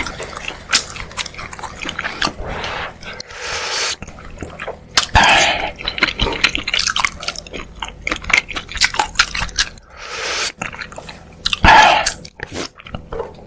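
Close-miked eating sounds: chewing and wet mouth clicks in quick irregular succession, broken by a few longer breathy, noisy stretches such as slurps, the loudest about two-thirds of the way through.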